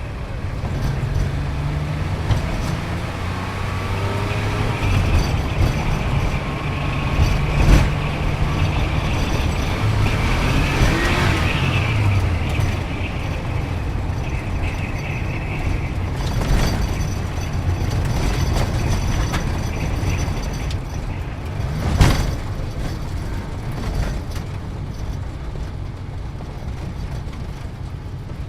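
Car engine running at low revs, its pitch stepping up and down, with a few sharp knocks along the way.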